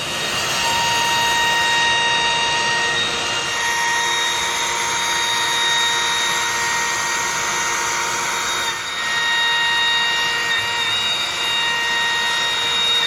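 Longmill MK2 CNC router spindle cutting wood with a bowl bit on its fine finishing pass, a steady high whine over the constant rush of a running dust collector. There is a short dip in level about nine seconds in.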